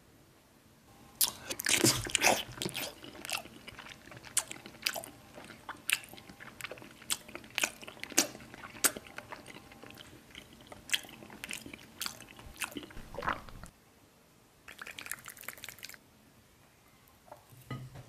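Close-miked ASMR chewing and crunching of a gummy banana candy: a dense run of sharp, crisp crackles and wet clicks starting about a second in, then a short pause and a brief last flurry.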